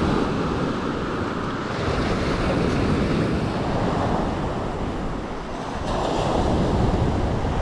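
Sea waves breaking and washing over a shingle beach, swelling and easing, with wind buffeting the microphone.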